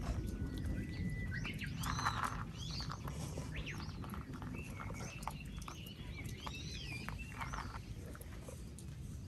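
Several small birds chirping and singing in short, quick up-and-down notes, over a steady low rumble.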